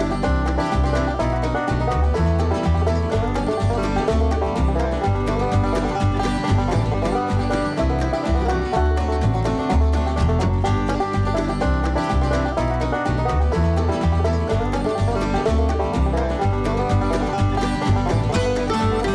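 Bluegrass-style string music with banjo and a steady bass beat.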